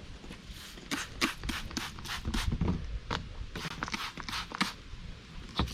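Soft-bristled brush scrubbing a soapy surface in quick, repeated back-and-forth strokes, about four or five a second.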